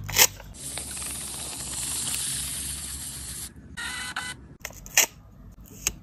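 Printed sticker label being peeled off its backing paper: a long papery hiss of about three seconds, then a shorter one. A sharp click comes just after the start and two more near the end.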